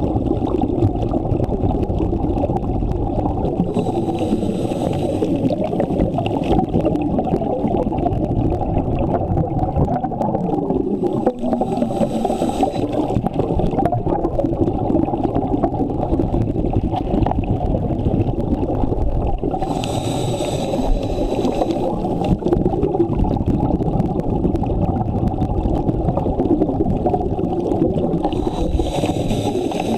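Scuba diving heard underwater: a steady low rumble, with a diver's breath hissing through the regulator four times, about every eight seconds, each lasting a second or two.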